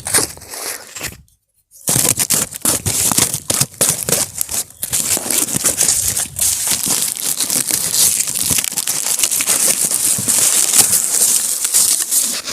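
Packing tape being peeled and torn off a cardboard gift box, a continuous crackling, crinkling rip with many sharp snaps. It breaks off briefly about a second in, then carries on.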